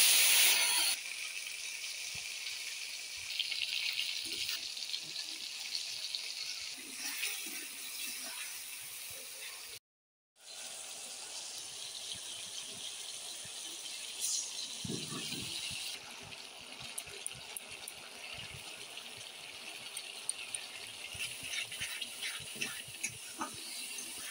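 Food frying in hot oil in a pan: a loud sizzle in the first second as tomatoes go in, then a steady sizzle with scattered clicks, broken by a brief silence about ten seconds in.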